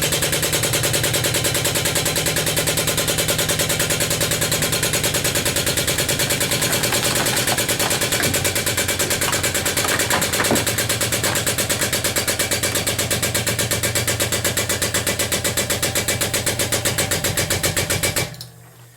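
An engine running steadily with a fast, even pulsing beat. It cuts off sharply near the end.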